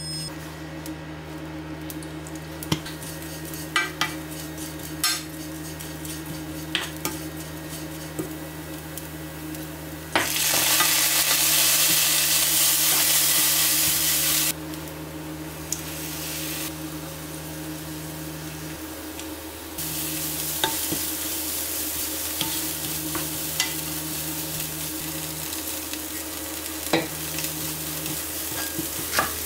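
Food sizzling as it fries in a pan, with scattered light clicks of a utensil against the pan. The sizzle turns loud about ten seconds in for roughly four seconds, then picks up again more softly around twenty seconds in. A steady low hum runs underneath.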